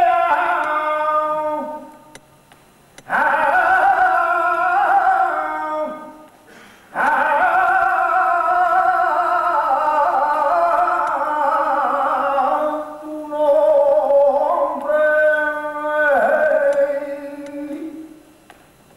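A single voice singing long, slightly wavering held notes in several unaccompanied phrases with short pauses between them, fading out near the end.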